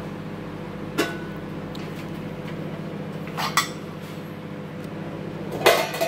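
Godrej microwave oven running with a steady hum, broken by a few sharp clicks: one about a second in, a quick double click a little past three seconds, and the loudest just before the end.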